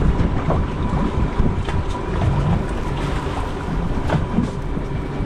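Steady low rumble of a fishing boat at sea, with wind buffeting the microphone and a few faint clicks.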